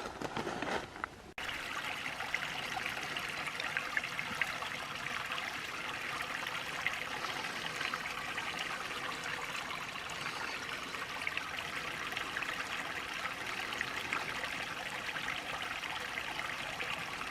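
Small spring-fed creek trickling and running over its bed, a steady, even rush of water that starts abruptly about a second in.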